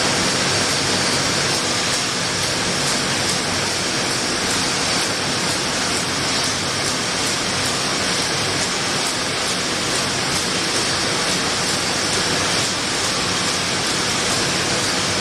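Steady machine noise of a running packaging line, with faint ticks at a regular pace.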